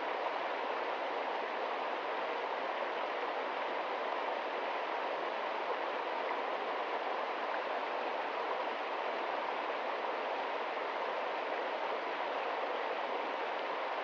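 Mountain stream rushing over rocks: a steady, unbroken rush of water.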